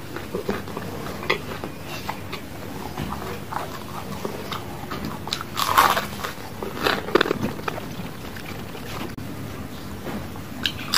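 Close-miked chewing and crisp, crunchy bites into a deep-fried battered snack (gorengan). The loudest crunches come about six and seven seconds in.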